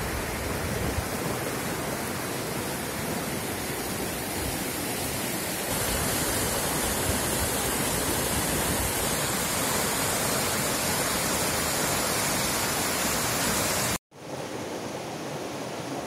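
Rocky stream below a waterfall rushing over boulders: a steady hiss of white water. It gets louder at a cut about six seconds in and cuts off for a moment near the end.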